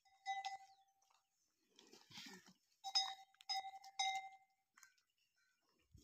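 A metal bell on the neck of one of the cattle clanging as the animal moves: one ring just after the start, then three rings in quick succession around three to four seconds in, each note ringing briefly and fading. A softer, brief noise comes in between, about two seconds in.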